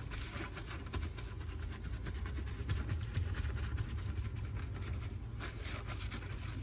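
Paper towel rubbing and patting on raw baby back pork ribs to dry them, a soft crinkly rustle over a steady low hum.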